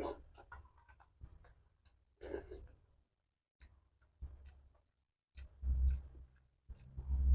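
Close-up eating sounds: scattered wet clicks and smacks of chewing soft food (lontong sayur), with a couple of low thuds near the end.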